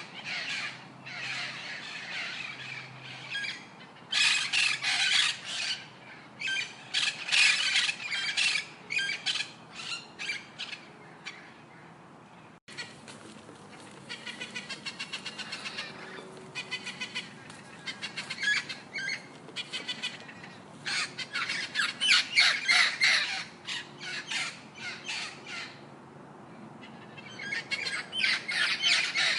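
Birds calling: runs of harsh, noisy calls repeated in quick series, with a sudden break about halfway through and a fast, even pulsing run just after it.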